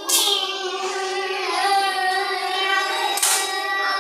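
Children's voices making a long, held buzzing hum to imitate a mosquito, starting sharply and taking up a fresh buzz about three seconds in.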